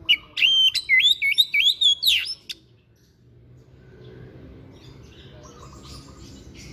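A songbird sings a fast, loud phrase of short whistled notes that swoop up and down for about two and a half seconds, then stops. Fainter chirping follows near the end.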